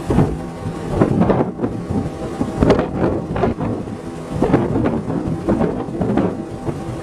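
Water churning and splashing in a boat's wake, swelling and easing in irregular surges about once a second.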